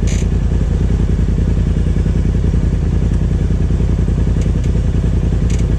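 Polaris RZR Turbo S's turbocharged twin-cylinder engine running steadily at low throttle, heard from the cab, with no revving. A brief light rattle just after the start and again near the end.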